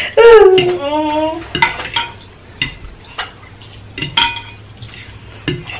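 A metal fork clinking and scraping against a glass baking dish as noodles are stirred: a scatter of separate sharp clinks, some briefly ringing. It opens with a loud wordless whine from a voice in the first second or so.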